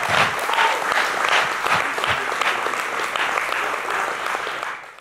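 Audience applauding, a dense spread of many hands clapping that fades out at the very end.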